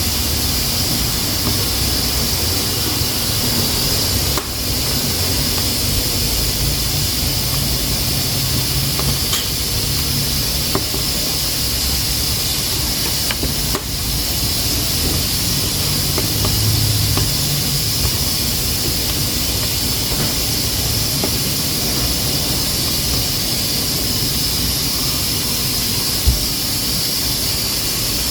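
Pressure cooker on a wood-burning stove hissing steadily as steam escapes its valve, the sign that it is up to pressure. A few faint clicks, and one sharp knock near the end.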